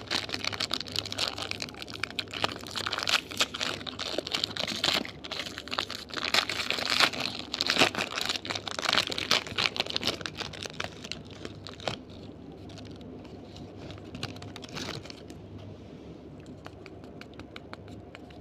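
Candy wrapper crinkling and crackling as it is handled, dense for about twelve seconds, then sparser and fainter ticks that die away a few seconds later.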